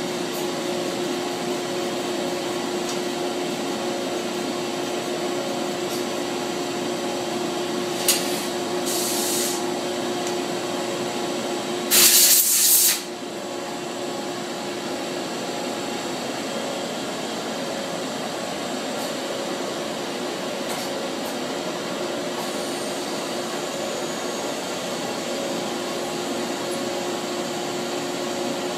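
A Charmilles Roboform 40 die-sinking EDM machine runs with a steady hum, going through its automatic tool change. A short click and hiss come about eight to nine seconds in. A loud blast of air hiss lasting about a second follows around twelve seconds in, and the hum is a little quieter after it.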